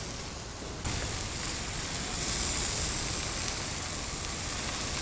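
Diced vegetables and bacon frying in olive oil over high heat with dry lentils just tipped in, a steady crackling sizzle that grows suddenly louder about a second in.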